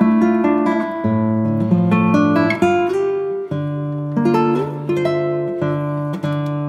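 Background music on acoustic guitar: plucked notes and strummed chords at a steady, relaxed pace.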